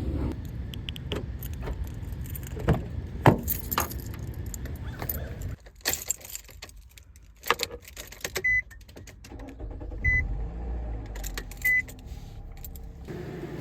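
Metallic jingling and clicking, like a bunch of keys being handled, followed by three short high electronic beeps about a second and a half apart.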